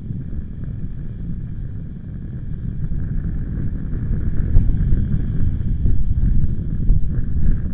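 Wind buffeting the microphone in gusts, a low rumble that grows stronger about halfway through.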